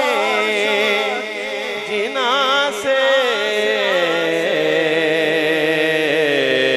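A man singing an Urdu/Punjabi naat into a microphone over a PA system, drawing out a long ornamented, wavering note that slowly sinks in pitch.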